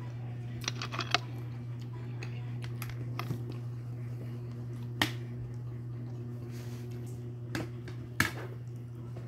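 Sharp, scattered clicks of small cooked sea snail shells (aninikad) being picked off a plate and bitten and sucked open: a quick cluster about a second in, then single clicks, the loudest about halfway through and near the end, over a steady low hum.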